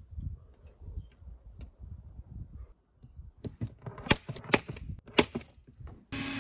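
Automatic center punch snapping several times as it is pressed onto a stainless steel tray, marking hole positions: sharp clicks in the second half, after faint handling noise. Just before the end a cordless drill starts running.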